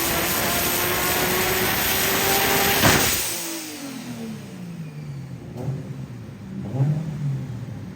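Nissan RB26 inline-six with a big turbo at full throttle on a chassis dyno. About three seconds in there is a sharp pop as the throttle closes, the revs fall away, and a couple of light throttle blips follow at a lower level.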